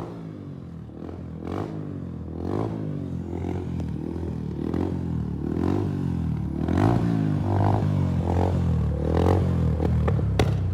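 TVS Apache RTR 150's single-cylinder engine through an Akrapovic exhaust, idling and being blipped over and over, each rev rising and falling in pitch about once a second. A couple of sharp pops from the exhaust near the end.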